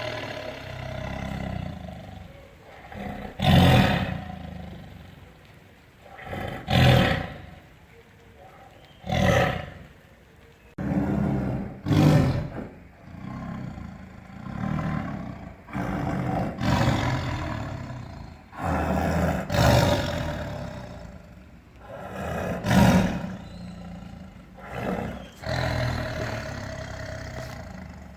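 Tiger roaring over and over, a loud roar every three seconds or so, with lower rumbling growls between the roars.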